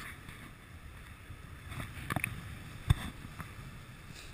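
Steady low rumble of wind and water with a few short sharp knocks, the loudest about three seconds in.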